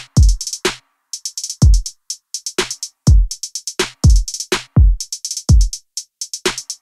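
Background music: an electronic drum-machine beat of deep kick drums that drop in pitch, with rapid hi-hat ticks between them.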